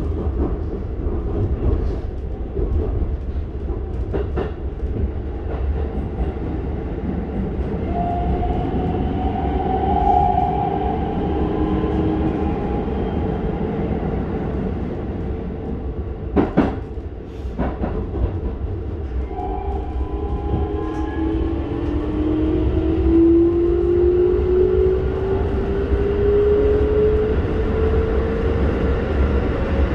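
Keikyu 1000-series electric train running, heard inside the passenger car: a steady rumble of wheels on rail, with the whine of its Toyo IGBT-VVVF inverter and traction motors, which rises steadily in pitch through the last ten seconds. Two sharp clicks come about a second apart midway.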